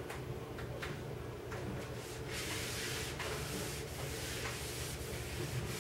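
Chalkboard being rubbed with a hand-held piece of chalk or an eraser: a scratchy rubbing in several strokes that starts about two seconds in and lasts about three seconds, over a low steady hum.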